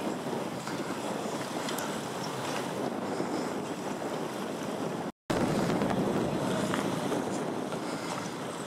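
Steady wind rushing on the microphone over choppy water, with wave and water noise. The sound cuts out for an instant about five seconds in.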